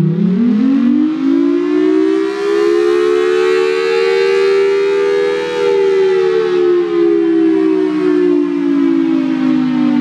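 Federal Sign & Signal Thunderbolt 1003 siren sounding. Its pitch winds up to a peak about five seconds in, then slowly winds down. Two close tones from its 5/6 port ratio sound together as a chord, and the loudness swells and dips as the horn rotates.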